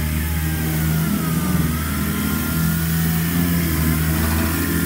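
Steady, loud machine drone: a low motor hum with a fainter, wavering higher whine above it.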